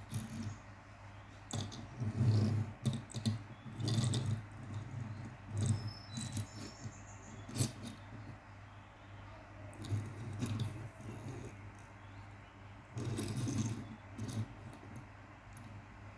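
Small die-cast toy asphalt paver handled and its parts worked: irregular clicks, rattles and scrapes, some in quick clusters, over a steady low hum.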